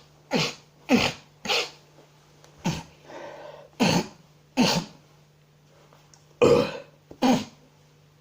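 A man sniffing hard through his nose, snorting a line of powder: about eight short, sharp sniffs in quick pairs and threes, with a softer rasping breath around three seconds in.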